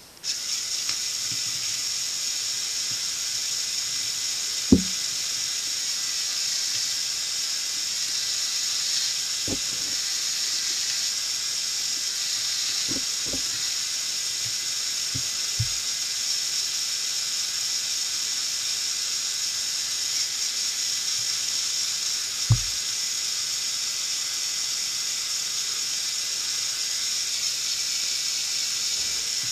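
A steady high-pitched hiss, with a few short low thumps scattered through it.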